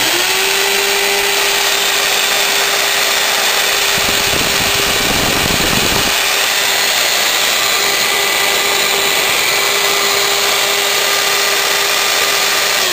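A 1/2-inch Craftsman electric drill switched on and running at a steady full speed, spinning a wooden dowel in a homemade lathe rig: a constant motor whine over a dense rushing hiss. About four seconds in, a low rumble joins for about two seconds.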